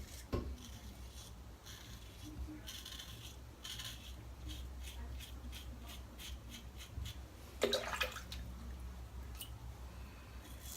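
Quiet wet-shaving sounds: splashes of water and short scraping strokes, with a brief vocal sound about eight seconds in.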